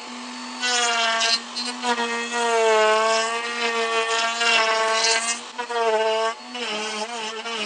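Wood router mounted in a pantorouter running and cutting a double tenon, its whine repeatedly dipping and recovering in pitch as the bit is moved through the wood.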